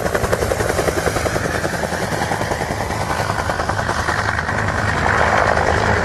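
Helicopter sound effect: rotor blades chopping in a fast, even beat over a steady low engine drone. It grows a little louder about four seconds in.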